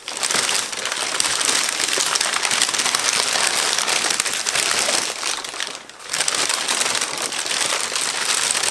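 Packaging being handled and crumpled: a steady dense crinkling and rustling, with a brief lull about six seconds in.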